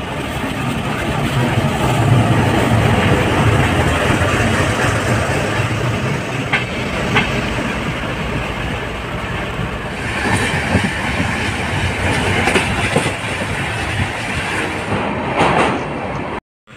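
Passenger train running on the rails: a steady rumble with a few sharp clicks of wheels over rail joints. It cuts off suddenly just before the end.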